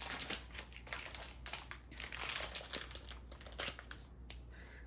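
Plastic packaging crinkling and rustling unevenly as blind-box toy parts are handled, with small clicks mixed in, busiest about halfway through.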